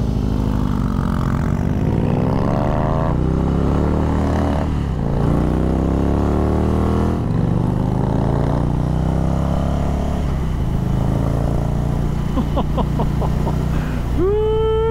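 Indian Chief V-twin cruiser with a Jekill and Hyde valved exhaust in its open Hyde mode, accelerating away through the gears. Its pitch climbs and drops back at each upshift, then the bike settles into a steady cruise. A short high-pitched sound comes near the end.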